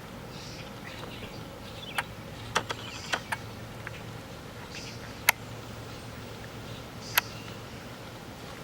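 Outdoor yard ambience with faint high chirps, probably birds or insects, broken by several sharp single clicks, the loudest about two seconds in, a cluster around three seconds, and two more later.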